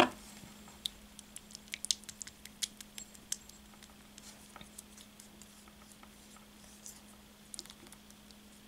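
Faint clicks and light scraping of a flat cosmetic brush stirring a creamy face mask against a small glass bowl, busiest in the first few seconds and sparser after.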